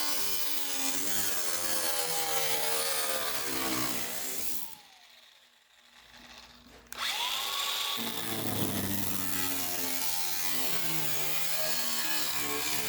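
Handheld electric power tool cutting aluminium sheet, its motor pitch wavering under load. About five seconds in it winds down and stops, then spins back up about two seconds later and carries on cutting.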